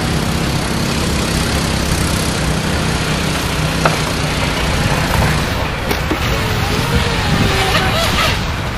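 Radio-controlled model speedboat running out on the water, its motor heard over a steady rushing background that holds throughout.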